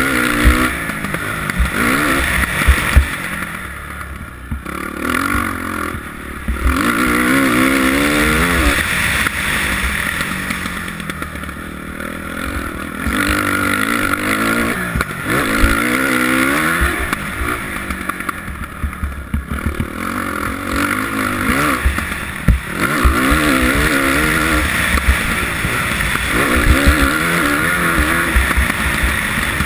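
2007 Suzuki RM-Z450's single-cylinder four-stroke engine revving up and dropping back again and again while being ridden hard, heard from a helmet camera, with a steady rushing noise and scattered low thumps.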